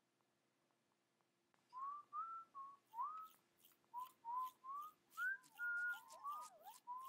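Soft whistling of a tune in short notes, several of them sliding upward in pitch, starting about two seconds in.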